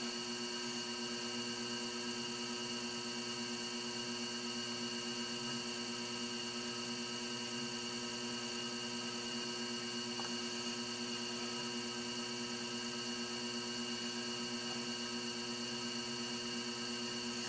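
Electric potter's wheel spinning with a steady electrical hum and whir, while a trimming tool shaves the leather-hard clay of a small cup.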